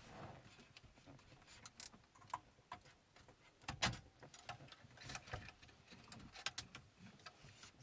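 Faint scattered clicks and rattles of plastic wiring connectors and harness being handled as the quad lock connector is unplugged from the back of a factory car radio. A slightly louder click comes just before four seconds in.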